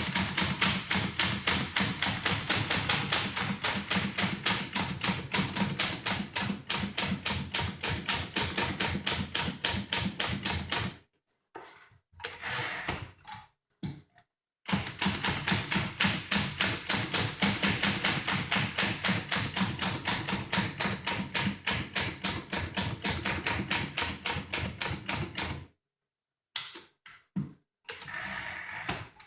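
1953 Tower Challenger manual typewriter, a Sears-branded Smith-Corona, typing quickly at several keystrokes a second. It runs in two long stretches with a short break near the middle, and a few lighter strokes near the end.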